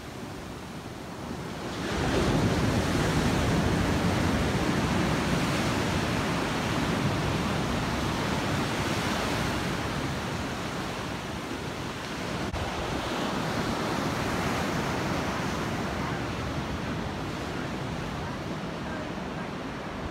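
Surf washing up a sandy beach, small waves breaking and running up the shore, with some wind on the microphone. The wash swells about two seconds in, eases off, and swells again a little past halfway.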